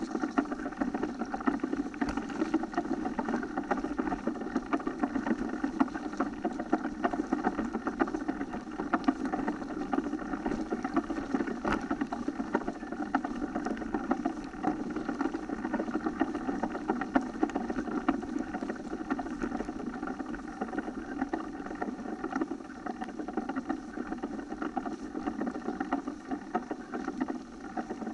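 Mountain bike riding over a muddy, rutted dirt forest track: a steady rumble of tyres on the rough ground, with constant small rattles and clicks from the bike over the bumps.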